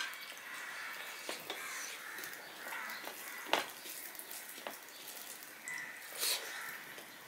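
Fingers mixing rice and fish curry on a stainless-steel plate, soft wet squishing with scattered light clicks, the sharpest about halfway through. Near the end a mouthful is taken and chewed.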